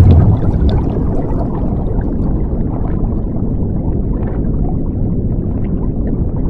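Underwater sound effect: a surge of rushing bubbles at the start, then a steady low underwater rumble with faint gurgling.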